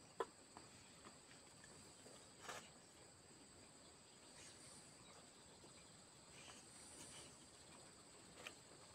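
Faint, steady high-pitched drone of insects, with a few soft clicks of eating by hand and mouth, the sharpest just after the start and others around two and a half seconds in and near the end.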